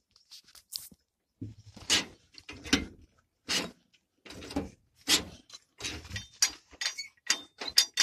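Irregular metallic clicks, clunks and scrapes from the T-25 tractor's newly fitted throttle pedal and linkage rods as they are worked by hand and foot to check that they move, with the engine not running. The knocks come several a second, and the loudest ones fall near the end.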